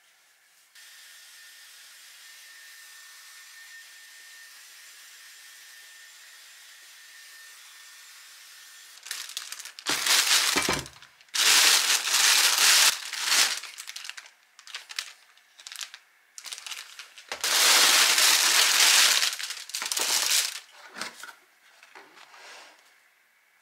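Thin plastic delivery bag rustling and crinkling loudly in bursts as it is untied and pulled off a pizza box, with a few quieter rustles near the end. Before that, a steady faint hiss.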